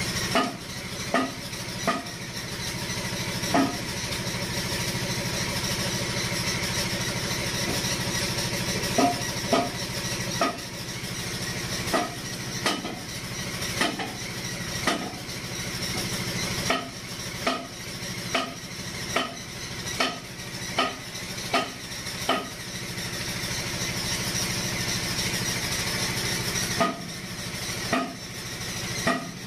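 Repeated sharp metallic clicks and taps as the aluminium piston of a dump truck's dump-box control valve is handled and pushed in its bore, heard over a steady engine-like hum and hiss.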